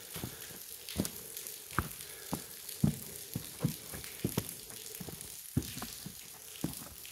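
Water dripping in a cave grotto: single drops plink irregularly, about two a second, over a faint steady hiss.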